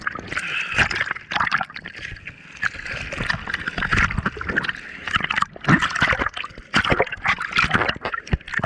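Seawater splashing and sloshing right at the camera, which sits at the water's surface beside a surfboard, with irregular sharp splashes and gurgles as the lens dips into the water and out.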